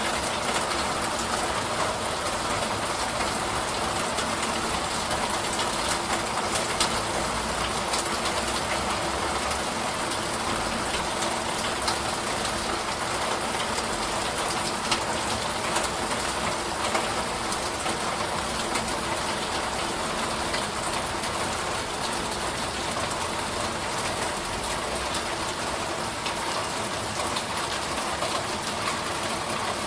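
Steady rain falling, an even wash of noise with scattered sharper drop ticks and no change in strength.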